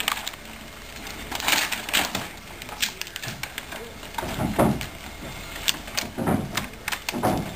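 Broken wood scraps clattering and crunching underfoot as several men shift their footing, with scattered knocks and clicks.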